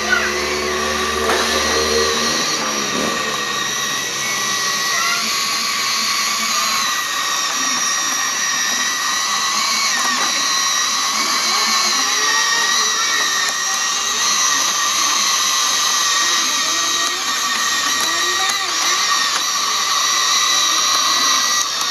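Huina 1593 RC excavator's small electric motors and gearboxes whining steadily as it drives on its tracks and works its arm, with a lower hum in the first couple of seconds.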